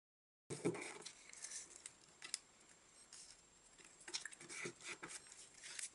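A sheet of origami paper being folded and creased by hand: faint, scattered paper rustles and crisp little crackles, starting about half a second in.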